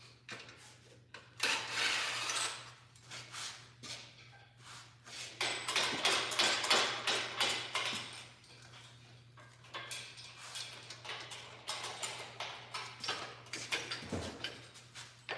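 Metal parts and tools clinking, rattling and knocking in irregular bursts as the rear of a minibike is assembled by hand, over a steady low hum.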